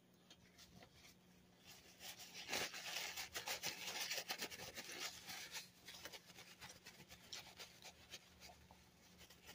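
Paper food wrapper rustling and crinkling as it is handled, busiest from about two to six seconds in, over a faint steady hum.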